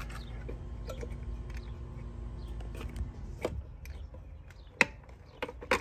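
Fingers working the pull-out handle of an air-conditioner disconnect box: a few sharp separate clicks, the last two near the end, over a steady low hum.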